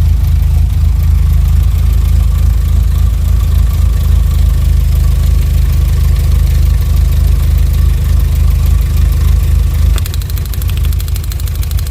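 Volkswagen Jetta Mk4's 2.0-litre four-cylinder engine idling unevenly with a cylinder misfire, shaking on its mounts. About two seconds before the end, a fast, even ticking starts over the idle: spark snapping from the ignition coil under test.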